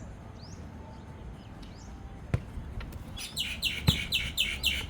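A bird calling: a few thin chirps at first, then a fast run of loud, falling chirps, about six a second, from about three seconds in. Two sharp thumps cut in, at about two and a third seconds and just before four seconds.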